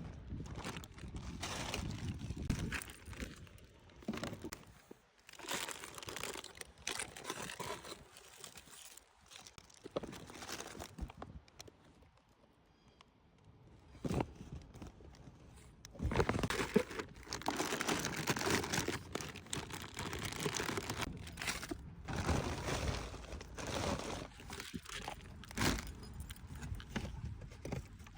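Packaging crinkling and rustling as it is handled, in irregular bursts. It goes quiet for a few seconds just before the middle, then comes back louder.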